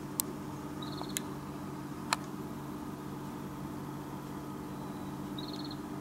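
Steady low hum with three sharp clicks in the first two seconds, and two short, rapid high trills, one about a second in and one near the end.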